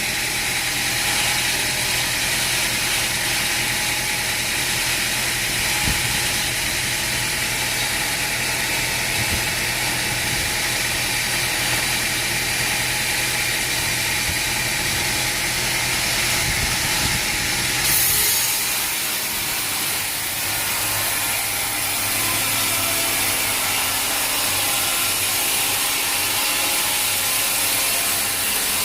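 Sawmill machinery running steadily: a low engine hum under a high hiss. About eighteen seconds in the low hum stops suddenly and a brighter, higher hiss carries on.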